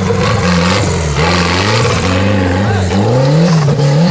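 Off-road buggy engine revving, its pitch rising and falling over and over as the buggy works over rough dirt, with a longer climb in revs near the end before they drop.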